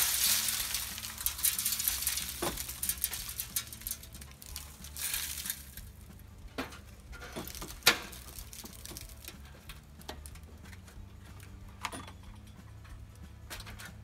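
Birdseed pouring out of a tipped wooden bird feeder, a rattling hiss of seed spilling for the first couple of seconds, with a shorter pour about five seconds in. Then come scattered knocks and clicks of the feeder being handled on the ladder, the loudest a sharp knock about eight seconds in.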